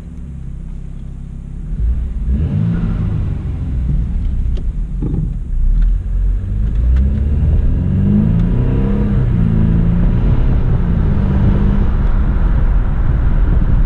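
BMW 328i's turbocharged four-cylinder engine pulling the car under acceleration, heard from inside the car; it gets louder and rises in pitch about two seconds in, then keeps running with a wavering pitch.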